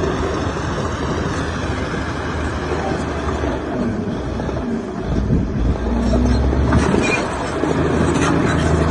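Diesel engine of heavy earthmoving machinery running steadily with a deep hum and rumble, getting louder a little past halfway.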